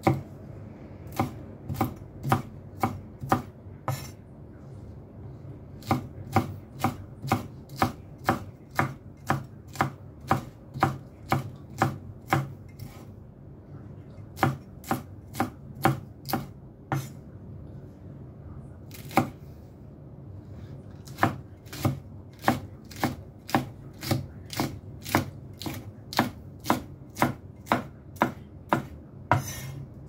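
Kitchen knife chopping green chilies on a cutting board: single sharp strikes about two a second, in runs broken by a few short pauses.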